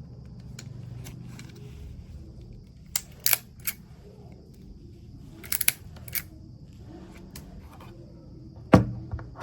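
RJ45 connector being crimped onto an Ethernet cable with a crimping tool: a few scattered sharp clicks of the tool and plug, with one loudest click near the end.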